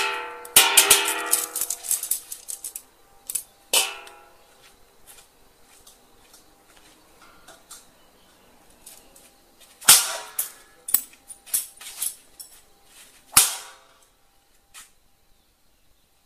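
A series of sharp bangs and knocks at irregular intervals, a few of them close together, the first ones followed by a short ringing tone.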